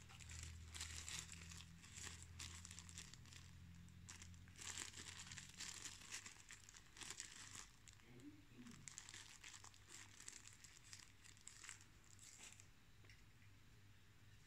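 Faint handling noise of a plastic hair clipper and its clip-on guide comb being turned over in the hands: irregular soft rustles and small plastic clicks, dying away near the end.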